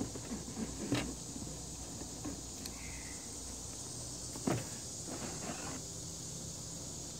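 A few knocks and light rattles as a quadcopter drone is handled and set back into its cardboard box with a moulded insert, the loudest knocks about a second in and near the middle. Under them, crickets chirr steadily.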